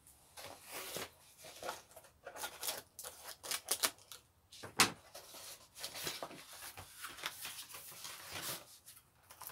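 Scissors cutting packing tape on a cardboard box, then cardboard flaps being pulled open and rustling, in a run of irregular clicks and scrapes. A single sharp knock about five seconds in stands out as the loudest sound.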